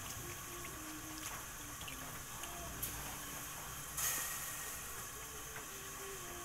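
Pot of fish and vegetable soup simmering with a steady low hiss. About four seconds in there is a brief louder rush as a handful of chopped green onions drops into the hot broth.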